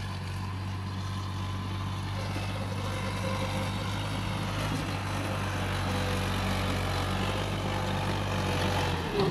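New Holland 480 tractor's diesel engine running steadily as it pulls a loaded trolley, growing a little louder as the tractor comes closer.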